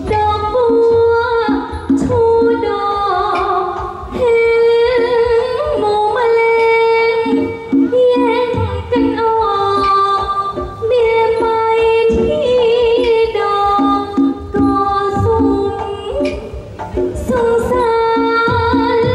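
A woman singing a Thai likay song in long, wavering phrases through a headset microphone and PA, over musical accompaniment with a regular beat.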